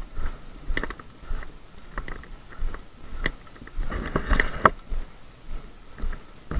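Footsteps of a person walking over dry woodland floor and undergrowth, about a step every half second or so, with brush and leaves rustling. The rustling is thicker for a moment around four seconds in.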